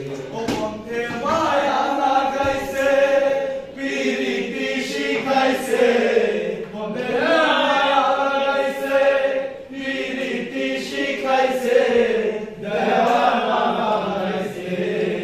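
A group of voices singing a Bengali folk song together in long, held, wavering lines.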